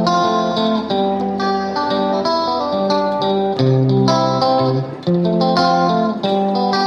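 Background music led by plucked guitar, playing a melody of notes that change every fraction of a second.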